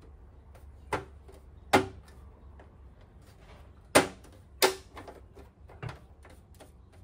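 Trim beading on the edge of a Vespa LX's plastic legshield being worked by hand, giving about five sharp plastic clicks and snaps at uneven intervals, the loudest about two and four seconds in.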